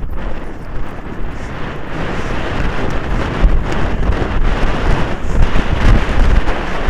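Wind buffeting a helmet-mounted camera's microphone as the rider gallops a polo pony, a loud rushing with low rumbling gusts that grows louder about halfway through.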